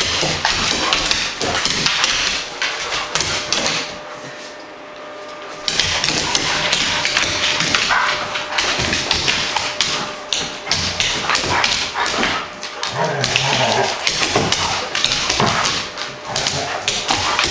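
Two Doberman pinschers play-fighting on a hardwood floor: rapid tapping and scrabbling of their claws on the boards, with some barking. The clatter drops off briefly a few seconds in, then picks up again.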